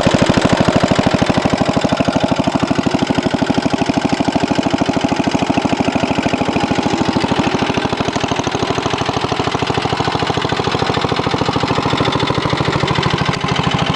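1963 Cub Cadet Original's single-cylinder Kohler engine running steadily with a heavy, rapid knock. The owner found metal flakes in the oil and says the engine needs a rebuild; he also says it has a bad head gasket.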